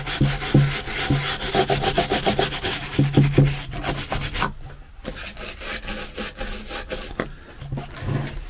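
Bristle brush scrubbing beeswax polish into a carved wooden figure: rapid back-and-forth strokes of bristles rubbing over the wood. The strokes are dense in the first half, drop away briefly about halfway through, then come back sparser.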